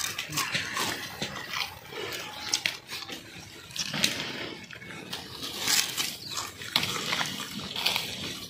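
Wet crunching and slurping of raw sugarcane being chewed, in irregular bites.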